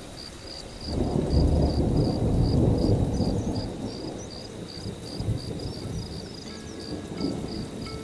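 Rainforest ambience: an insect chirping steadily about three times a second, with a long roll of thunder that swells about a second in and fades over the next few seconds. Soft sustained musical tones come in near the end.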